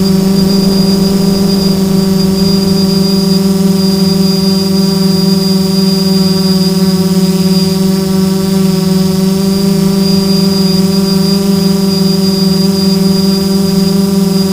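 Multirotor drone's electric motors and propellers humming steadily at one low pitch, with a faint high whine above, heard from the drone's own camera.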